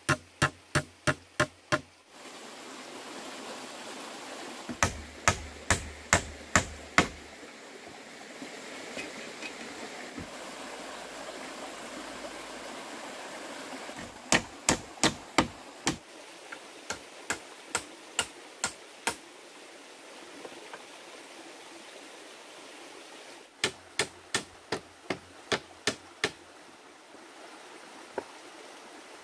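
Runs of sharp, rhythmic knocks, about three to four strikes a second, repeated in several bursts, with a steady rushing noise between them.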